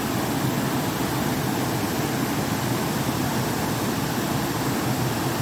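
Full mountain stream rushing over rocks, a steady, loud roar of water with no break.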